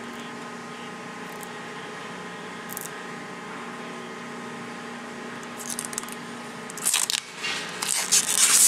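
Protective plastic film being peeled off a clear plastic window panel, crackling and crinkling in irregular bursts that start about six seconds in and get loud near the end. A steady hum runs underneath.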